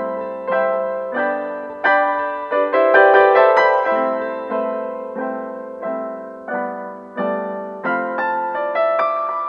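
Background piano music: a slow melody of single struck notes, each dying away before the next, fading near the end.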